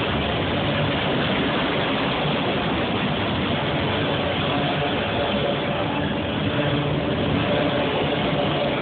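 CSX freight train's autorack cars rolling past close by: a steady rolling noise of steel wheels on the rails that holds at an even level throughout.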